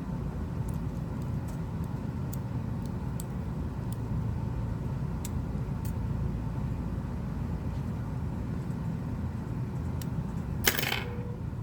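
Small parts of a Blackberry Leap phone being handled and fitted back in during reassembly: faint light ticks over a steady low background rumble, and one sharp click about ten and a half seconds in.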